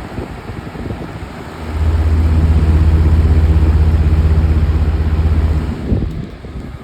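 20-inch Aerospeed box fan running on high, its airflow rushing steadily. About two seconds in a loud, low, rapidly pulsing buzz starts and cuts off about four seconds later: the fan vibrating against the table because its blade is severely out of balance.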